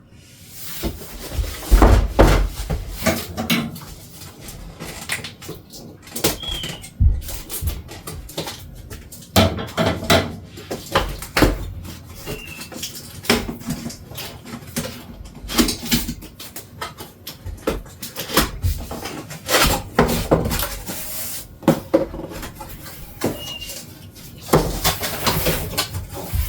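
A cardboard box being opened and its packaging handled: irregular rustling, scraping and knocks of cardboard and plastic.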